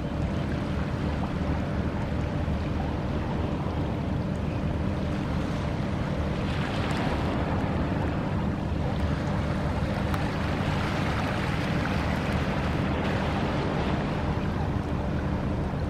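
Steady low hum of a motor, with wind and water noise over it.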